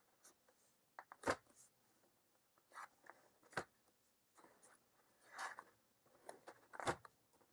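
Boxed toy packaging being handled: a few light knocks and short rustles, with quiet gaps between them.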